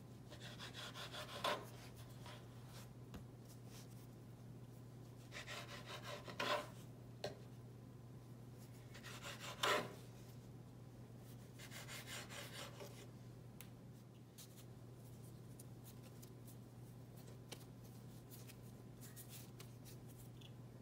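A knife cutting through bread dough and scraping along a floured wooden cutting board, in four short strokes that each end in a sharp tap on the board. A low steady hum underneath.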